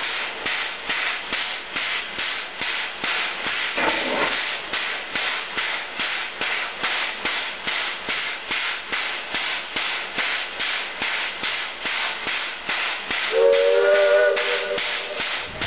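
Geared Shay steam locomotive working slowly, its exhaust chuffing in an even beat of about three chuffs a second with a hiss of escaping steam. Its chord steam whistle gives a short toot about four seconds in and a longer blast of about two seconds near the end.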